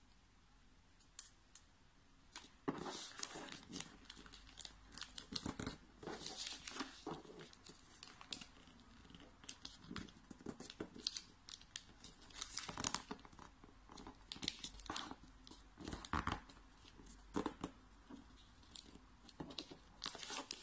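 Origami paper rustling and crinkling in irregular, short crackles as hands fold and crease a square sheet, starting about two and a half seconds in after a quiet start.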